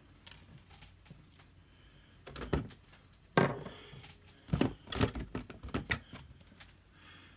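Scattered sharp plastic clicks and rustling as nylon cable ties are handled and threaded through drilled holes in a plastic RC car body shell and roof rack.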